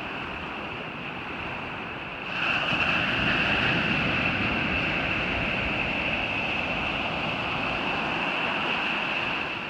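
Ocean surf washing onto a beach, swelling louder about two seconds in and staying up.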